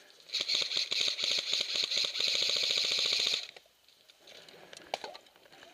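Airsoft gun firing one long full-auto burst of rapid, evenly spaced clicks for about three seconds, then stopping.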